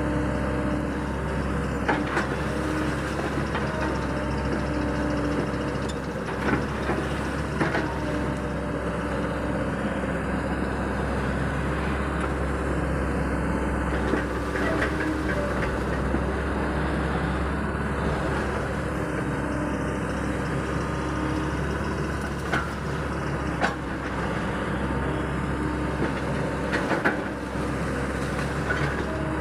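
Excavator's diesel engine running steadily while it works, with a few sharp knocks now and then.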